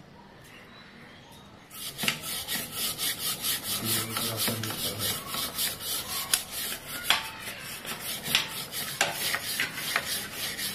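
Chain-cleaning brush scrubbing a kerosene-soaked motorcycle drive chain in quick back-and-forth strokes, about four a second, starting a little under two seconds in.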